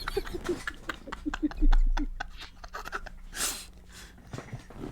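Stifled, breathy laughter and panting in short bursts, with clicks and a loud low thump about two seconds in from the phone being handled.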